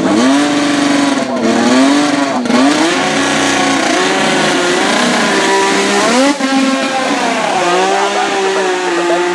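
The 1979 Renault RS10's 1.5-litre twin-turbo Gordini-Renault V6 is being revved with the car standing still. The revs sag and climb back up several times, then settle to a steady hold near the end.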